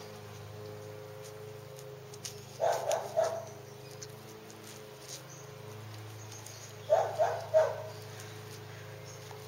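A dog barks in two quick bursts of three barks each, about four seconds apart.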